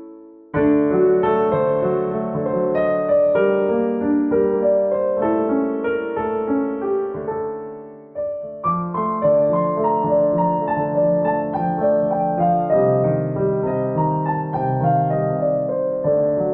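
Solo piano music: a gentle melody of struck notes over sustained chords. It falls away and restarts twice, about half a second in and again about 8 seconds in, and fades out near the end.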